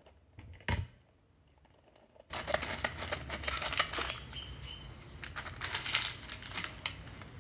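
Plastic seaweed-snack packet being crinkled and torn open by hand: a dense crackly rustle that starts about two seconds in, after a single short tap.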